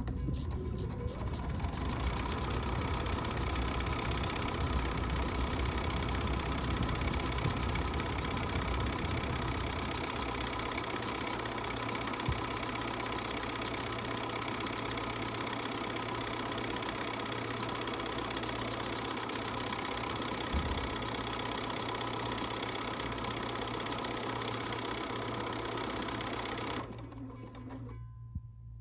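Bernina 475 Quilters Edition sewing machine running steadily as it stitches out a decorative stitch, stopping abruptly near the end.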